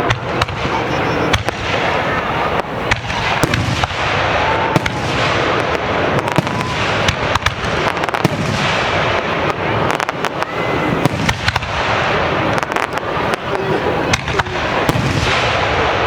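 Aerial fireworks display: a dense run of rapid, overlapping shell bursts with bangs and crackling throughout.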